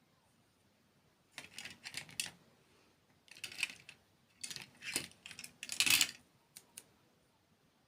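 Close-miked crunching of crisp food, as in eating ASMR: four bursts of crackling crunches, the last the loudest, followed by two small clicks.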